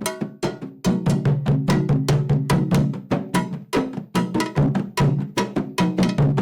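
Afro-Brazilian hand drums playing a fast, steady batá rhythm in dense, evenly spaced strokes: the Candomblé toque that opens the xirê for Exu.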